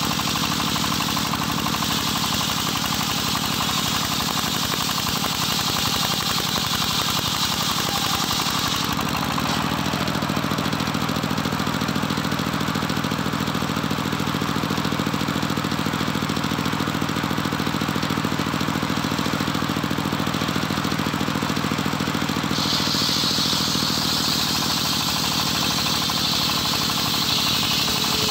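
Homemade engine-driven circular sawmill running steadily while ripping johar wood: the blade hisses as it cuts through the block, falls back to just the engine's hum for a stretch about a third of the way in, then bites into the wood again near the end.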